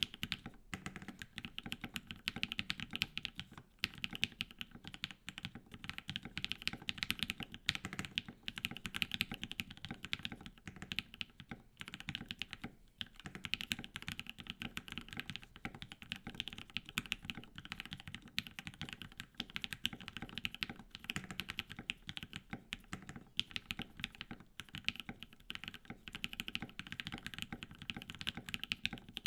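Typing on a Think6.5 V2 custom mechanical keyboard with lubed and filmed JWK Dogikon linear switches and PBT keycaps: fast, continuous keystrokes with a few brief pauses.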